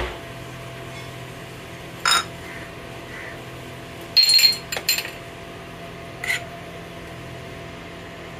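A steel spoon clinking against a metal pot of milk on the heat. There are a few separate clinks, the loudest and most ringing a little past four seconds in, over a steady low hum.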